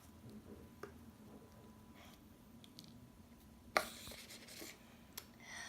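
Quiet rubbing and handling noises of fingers working slime, pulling off a small piece and picking little balls out of it, with a few small clicks and one sharper rustle nearly four seconds in.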